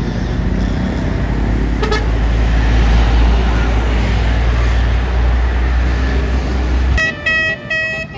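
A bus's engine running with a loud low rumble as it passes close, with a brief horn toot about two seconds in. About seven seconds in, a basuri 'telolet' multi-tone air horn starts playing a quick melody of short notes.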